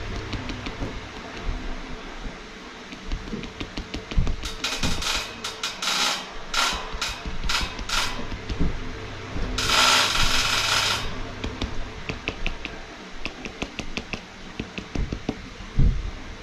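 A bundle of cotton swabs loaded with paint dabbing and scrubbing against a painted board: a run of quick scratchy taps, then a denser scrub lasting about a second and a half around the middle, then lighter scattered taps and a low thump near the end.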